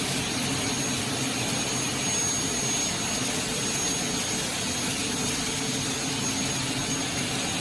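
Double-head aluminium cutting saw's motors running steadily with the 550 mm blades spinning, a constant whirring with a thin high whine.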